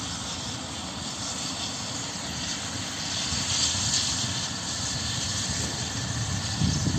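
Light helicopter running on the ground with its rotor turning: a steady engine whine and rotor noise over a low rumble, growing a little louder in the second half with a low surge near the end.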